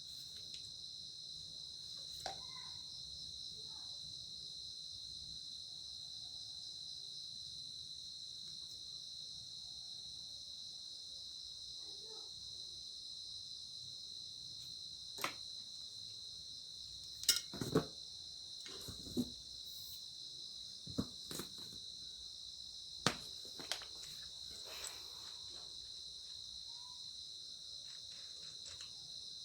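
Crickets chirring steadily in the background, with a handful of sharp clicks and knocks scattered through the second half. The angle grinder is not running.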